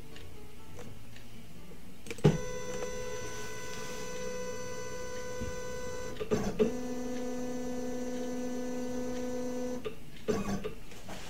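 LongMill benchtop CNC's stepper motors moving the router through a probing routine against an aluminium touch block. A steady, high motor whine starts with a click about two seconds in and runs to about six seconds. After a short clatter, a lower-pitched whine runs until nearly ten seconds, followed by a couple of knocks near the end.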